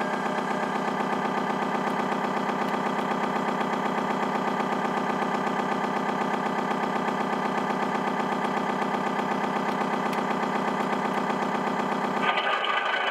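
Diesel tugboat engine sound effect played by an RC model tugboat's sound module, idling steadily with an even, fast throb. A short hiss comes in near the end.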